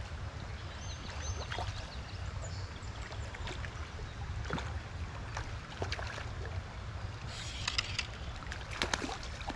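Trout stream water running steadily, with scattered small splashes and clicks, and a brief cluster of them about seven to eight seconds in.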